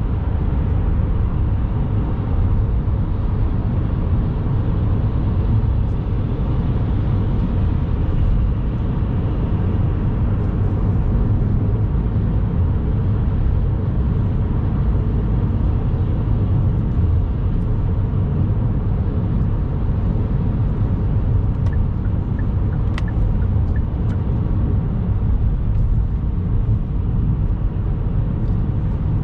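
Steady low road rumble of a car driving at speed, heard inside the cabin: tyre and engine noise with no change in pace. A few faint ticks come about two-thirds of the way through.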